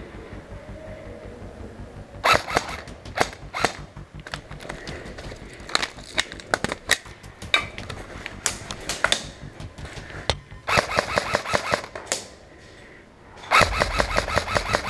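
Airsoft electric rifle (APS ASR-110) firing: scattered single shots at first, then two rapid bursts near the end with a short pause between them.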